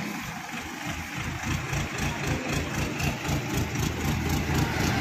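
Mobile crane's diesel engine running with a rapid, even low throb, getting louder from about a second and a half in as the crane hoists the generator set.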